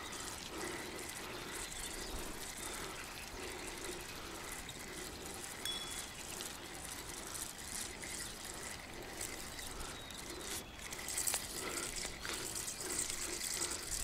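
Water splashing and trickling, with a soft regular pulse about one and a half times a second, while a hooked carp is played on a ledger line.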